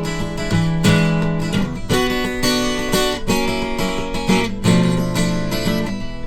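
Acoustic guitar strumming chords steadily, an instrumental intro before the singing comes in.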